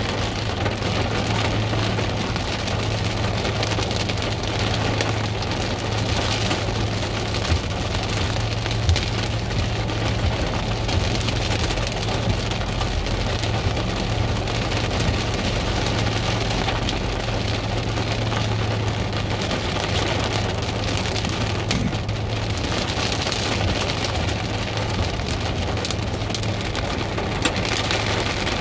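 Heavy rain on a car's roof and windshield, heard from inside the car: a dense, steady pattering that swells a little at times, over a steady low hum.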